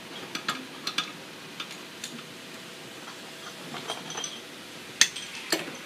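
Scattered sharp metal clinks and ticks of a wrench against the rotolock nuts and fittings of a Trane Climatuff compressor as they are worked loose by hand, with a louder clink about five seconds in.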